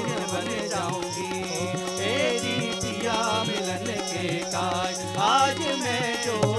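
Indian folk ensemble music: harmonium drone, a bansuri flute's gliding melody, tabla and dholak strokes and small hand cymbals keeping the beat.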